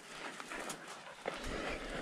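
Footsteps crunching on a hiking trail: several irregular steps, with a rougher scuffing stretch about halfway through.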